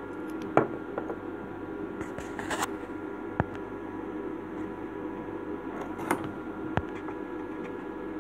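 Handling noise: a few sharp light clicks and knocks, with a brief rustle about two seconds in, over a steady background hum, as the metal bobbin and sewing machine parts are handled.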